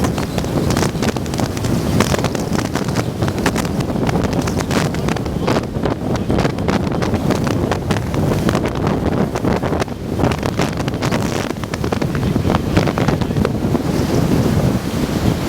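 Strong wind buffeting the microphone: a loud, constant rumble with irregular gusty thumps.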